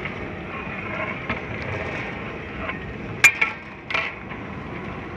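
A long metal stirring paddle clinks twice against the rim of a large aluminium cooking pot, about three and four seconds in, over a steady background hiss.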